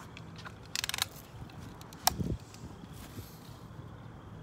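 A BB gun fires once with a sharp crack about two seconds in, followed by a short low thud. About a second earlier there is a quick rattle of clicks.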